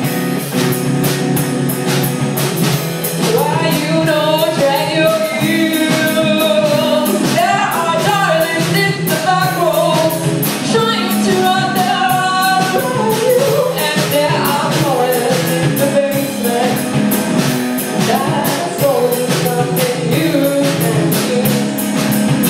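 Live rock music from a two-piece band: an electric guitar and a drum kit with a singer. The singing comes in about three seconds in over steady guitar chords and frequent drum hits.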